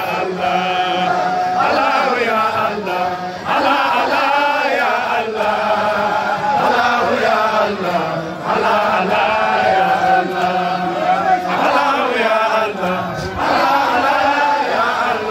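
A group of voices chanting a Sufi religious chant (dhikr) together, several voices overlapping with long held notes.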